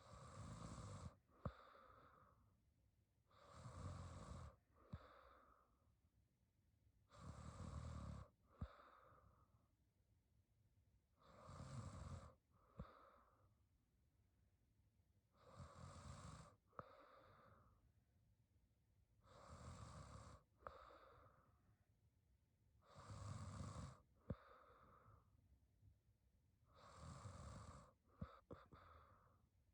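Young woman snoring faintly in her sleep: a snore on each breath in, about every four seconds, each followed by a shorter, softer breath out with a small click.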